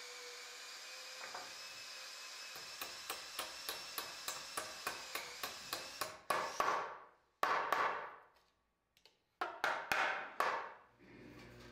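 Ball-peen hammer driving a nail into a wooden wagon reach: a quick run of light taps, about four a second, then a handful of heavier blows that ring briefly.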